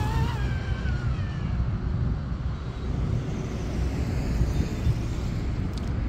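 The high whine of an RC speed boat's twin Turnigy XK3674 2200kV brushless motors at full speed, falling in pitch and fading over the first second or so as the boat runs away. After that there is a steady low rumble.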